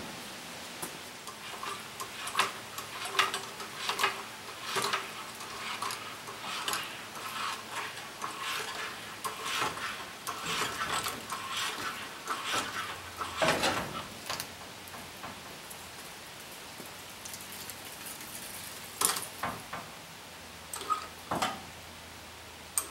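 Irregular metallic clinks, clanks and scrapes of metal parts and tools being handled, busy through the first half and sparser later, with a few sharper knocks near the end.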